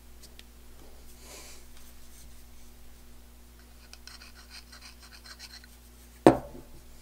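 Small metal parts of a super spacer being handled during reassembly: a light scrape, then a run of faint clicks, then one sharp metal clunk near the end.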